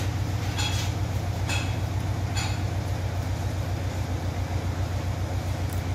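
A steady low mechanical hum with a fast, even pulsing under it. Four short rasps in the first two and a half seconds, from the orange mask fabric being handled.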